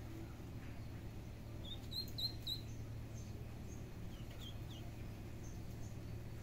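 Ducklings peeping: a quick run of about four short high chirps about two seconds in, then a few fainter peeps later, over a low steady background hum.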